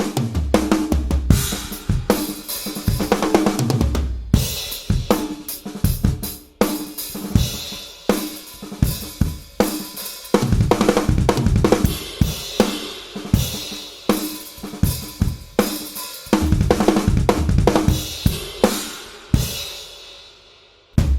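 Drum kit played in grooves and fills, recorded through a Yamaha EAD10 drum module with triggers on the snare and toms: kick, snare, hi-hat, toms and cymbals hit in a steady stream, with a cymbal ringing out near the end.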